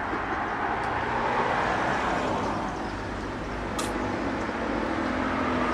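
Steady road or traffic noise, with one short click near the middle.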